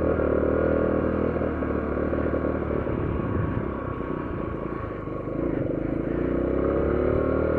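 Honda CT90's small single-cylinder four-stroke engine under way: its note drops off, runs lower and rougher for a few seconds, then climbs steadily as the bike accelerates again.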